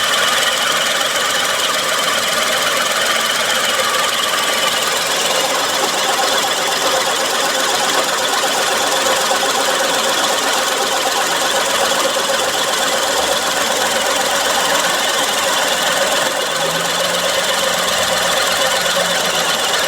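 Suzuki K6A three-cylinder engine idling with a steady abnormal mechanical noise from the accessory drive. The owner traced the noise to a failing water pump bearing and a faulty A/C compressor. A low steady hum joins in near the end.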